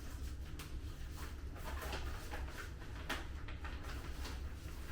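Rustling and scattered light clicks of plastic packaging and clothing being handled, over a steady low hum.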